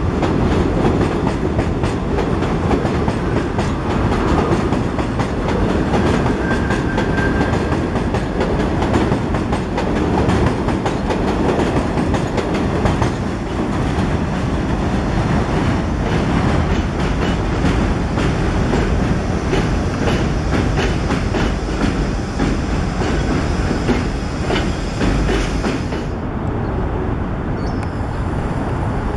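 New York City subway train running on elevated steel track, its wheels clattering over rail joints and switches in a steady clickety-clack, with a brief wheel squeal about seven seconds in. Near the end the clatter gives way to a duller rumble.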